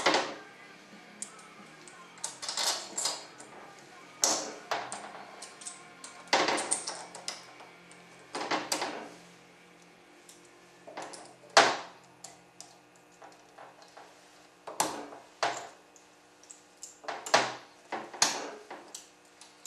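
Irregular clinks, knocks and short scrapes of metal parts being handled and fitted on an automatic transmission valve body as the on-off solenoid goes in.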